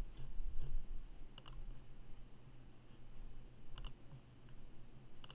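Computer mouse clicks: a quick pair of clicks about a second and a half in, another pair near four seconds, and a third near the end, over a low steady hum.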